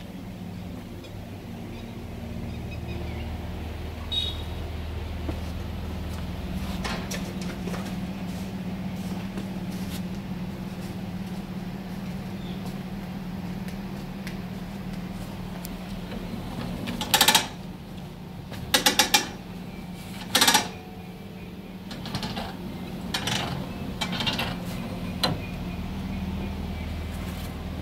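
Three short, loud blasts of compressed air from a tyre inflator close together past the middle, then a few fainter short blasts, over a steady low machine hum.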